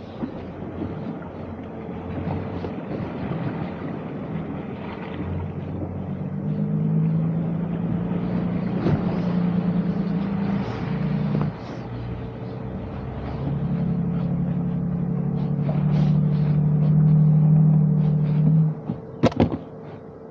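2023 Toyota Sequoia TRD Pro's twin-turbo V6 hybrid engine pulling under throttle on an off-road trail. Its drone swells in two long spells over a steady high hum. A few sharp knocks come near the end.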